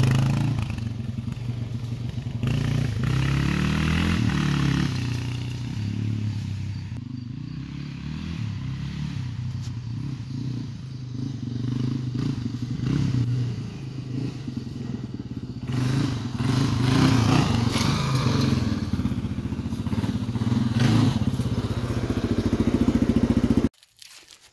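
Yamaha XT350 single-cylinder four-stroke engine running, its pitch rising and falling a few times with the throttle; the sound cuts off suddenly near the end.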